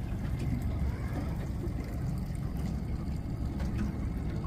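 Boat motor running steadily during trolling, a low rumble, with water noise around the hull and a few faint clicks.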